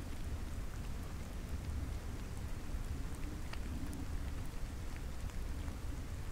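Steady low rumble and hiss with scattered faint ticks, a rain-like ambient noise texture played backwards, with a faint wavering hum through the middle.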